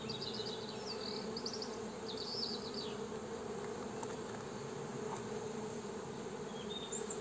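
Steady hum of a honeybee colony from an opened hive box, the bees calm on their frames.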